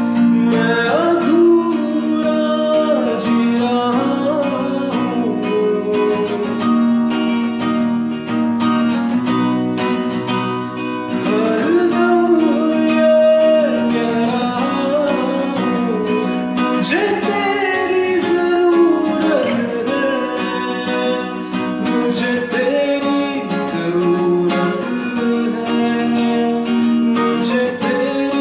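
A man singing a Bollywood ballad over his own acoustic guitar accompaniment.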